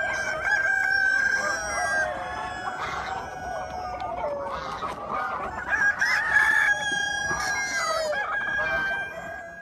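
A flock of chickens clucking and crowing, many overlapping calls at once, with a long drawn-out call near the start and another in the last few seconds.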